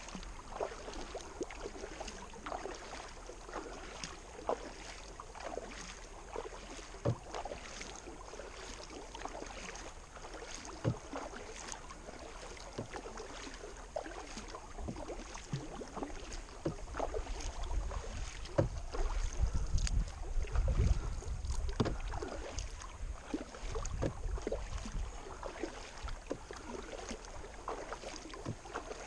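Kayak paddling against a river current: the paddle dipping and splashing, with scattered drips and light knocks. A low rumble of wind on the microphone rises in the middle stretch.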